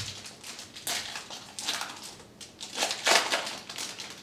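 Foil wrapper of a trading-card pack crinkling in the hands as the pack is opened, in several short bursts, the loudest about three seconds in.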